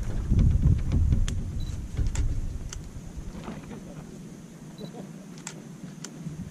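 Wood campfire crackling with sharp pops about once a second, over a low rumble that fades after about four seconds.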